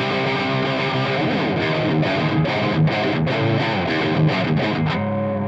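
Les Paul electric guitar played straight into a Marshall JCM800 2203 100-watt tube head with no effects: distorted rhythm chords. Near the end one chord is left ringing.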